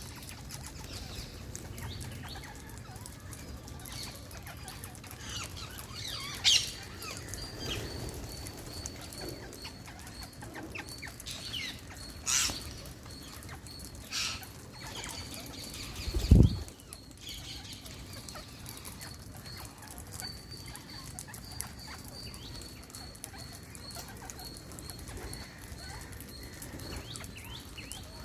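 Wild parrots giving a few short, sharp, high calls, spaced several seconds apart over a faint steady high tone. Partway through comes a single loud low thump, the loudest sound here.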